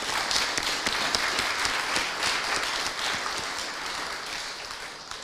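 Audience applauding: many hands clapping together, strongest in the first couple of seconds and slowly fading.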